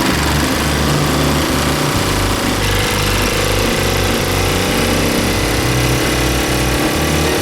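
79cc single-cylinder engine of a motorized bicycle running while the bike is ridden; its pitch climbs about three seconds in, then eases back down.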